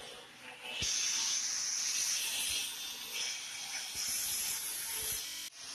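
Angle grinder working stainless steel railing, a harsh hiss that starts sharply about a second in and holds steady, with a brief break near the end.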